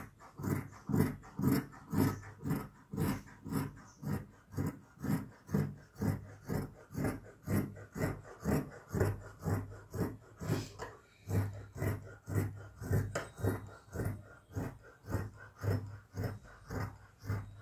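Large tailoring shears cutting through several layers of suit fabric and lining, a steady run of rasping snips about two to three a second.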